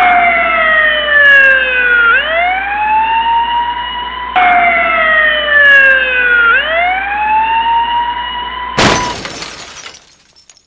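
Siren sound effect: a wail that slides down and then back up in pitch, twice, each cycle about four seconds long. Near the end it is cut off by a sudden loud burst of noise lasting about a second.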